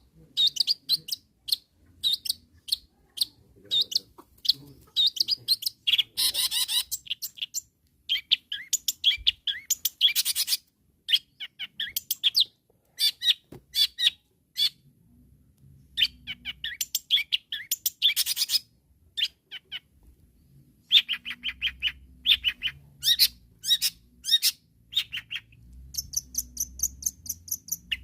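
Long-tailed shrike singing hard: runs of rapid, sharp, high chattering notes in bursts, with short pauses between. It is the vigorous full song that keepers use to call out rival shrikes.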